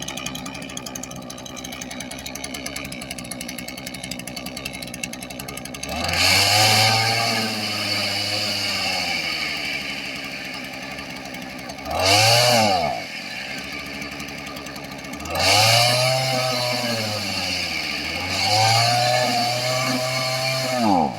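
Makita MEM2600U brush cutter's small two-stroke engine idling, then revved four times, its pitch climbing and sagging each time. Near the end the revs fall away steeply and the engine cuts out: it stalls when the throttle is opened, on a unit sold as junk for a bad abnormal noise.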